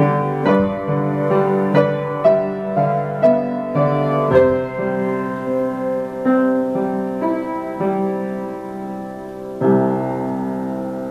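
Electric-piano music playing a melody over chords, ending on a final chord about nine and a half seconds in that is held and fades away.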